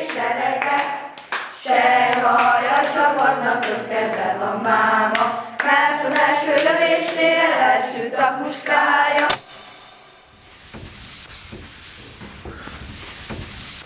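Soundtrack music: a choir of voices singing sustained chords with sharp hand claps, cutting off abruptly about nine seconds in, followed by a low hiss that slowly grows louder.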